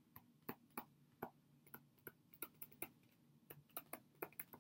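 Stylus tapping and clicking on a tablet screen during handwriting: faint, irregular clicks a few per second, over a faint low hum.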